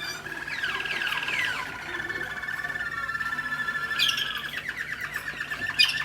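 American Singer canary singing: rapid, even trills held on one pitch, with quick downward-sliding notes about a second in. Sharp, loud high notes break in about four seconds in and again near the end.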